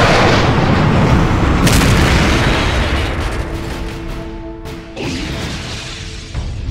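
Film sound effects of a spacecraft flyby whoosh running into a deep explosion boom that rumbles and slowly fades, over score music with held notes. A brief whoosh comes near the end.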